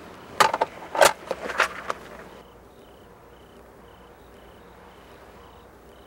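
Papers and a folder being picked up and handled: a quick run of sharp rustles and knocks in the first two seconds. After that, faint cricket chirps repeat about twice a second.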